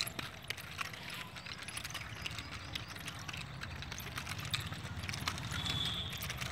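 Wooden nunchaku with a metal chain spun fast and passed from hand to hand over the shoulders. The chain and sticks make a rapid, irregular clatter of clicks and taps as they swing and are caught.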